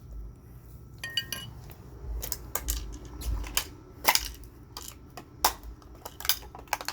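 An alarm clock being smashed apart: a run of sharp knocks and clattering of its hard plastic and metal pieces, the loudest blows about four and five and a half seconds in.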